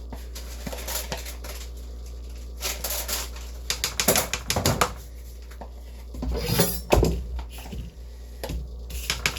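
Kitchen utensils and dishes clinking and scraping over a steady low hum: a run of quick clicks about four seconds in, then a louder scraping clatter near seven seconds.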